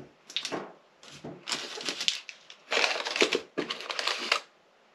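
Packaging rustling and crinkling in about four bursts as nail art kit items are unwrapped and handled.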